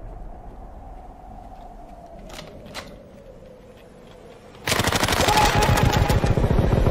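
Submachine gun fired in a long burst of rapid automatic fire, starting about two-thirds of the way in, after a low rumble with a slowly falling tone and two faint clicks.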